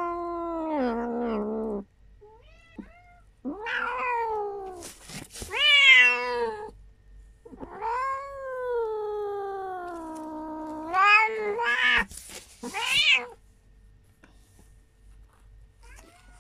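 Cat in labour yowling: about six drawn-out meows, mostly falling in pitch, the longest lasting about three seconds, with shorter, louder, higher cries a little after the middle.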